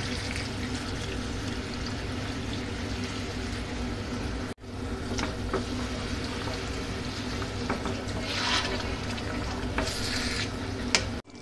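Hot water poured into a steel pan of chicken and fried masala, then the thinned curry stirred with a wooden spatula, a few scraping strokes standing out near the end. Under it the pan hisses steadily.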